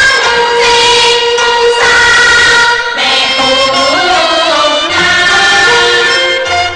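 Chinese opera music: a voice singing a slow, sliding melodic line over instrumental accompaniment.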